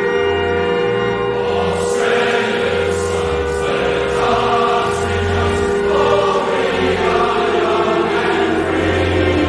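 The national anthem performed by a choir with organ. Sustained organ chords give way to full choral singing about two seconds in.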